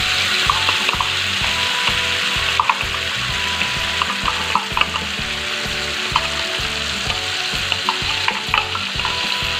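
Freshly blended chili, shallot and garlic spice paste frying in hot vegetable oil in a frying pan: a steady sizzle with scattered small pops and crackles.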